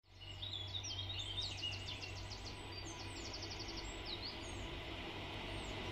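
A songbird singing quick chirps and fast trills, strongest in the first half. Beneath it runs the low steady hum of an electric rack-railway train approaching, with a hiss that grows toward the end.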